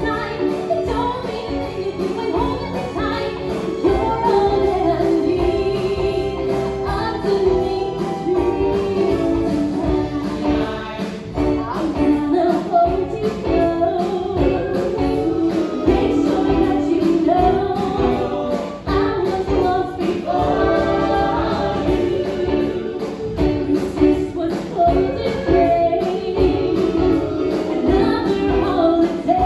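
Live stage show music: a group of voices singing a song over full musical accompaniment.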